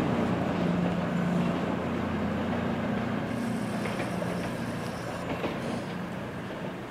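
CrossCountry Voyager diesel multiple unit pulling away, its underfloor diesel engines running with a steady low hum that fades gradually as the train draws off along the track.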